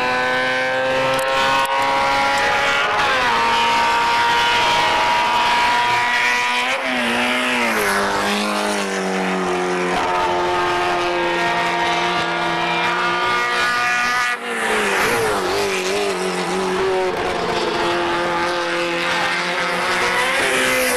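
Racing saloon car engines at high revs, the pitch dropping sharply a few times as the drivers lift off or change gear.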